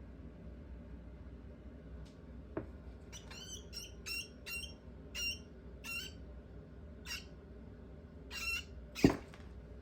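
Baby rat pup squeaking, about ten short, high-pitched squeaks in an uneven series, followed near the end by one sharp knock, the loudest sound.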